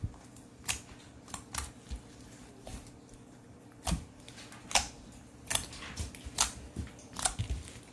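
A dozen or so light, sharp clicks and taps at irregular intervals over a faint steady hum.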